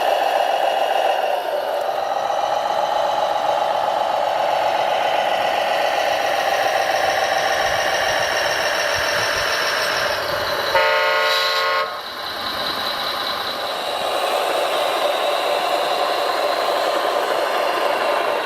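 Whine of radio-controlled construction machines' electric drives and gearing, running steadily with small rises and falls in pitch. About eleven seconds in, a horn toots once for about a second.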